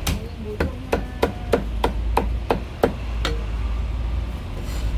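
Cleaver chopping marinated goose on a thick round wooden chopping block: about ten quick strikes, roughly three a second, that stop a little past halfway.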